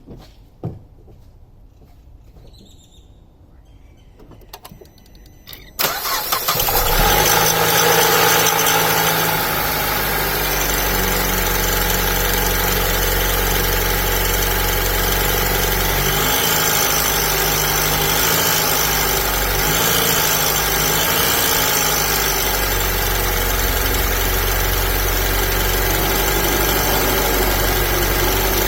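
Alfa Romeo 159 JTS engine starting about six seconds in, running at a raised idle for a few seconds and then settling into a steady idle. The owner puts its rattle down to a worn timing chain that is due for replacement.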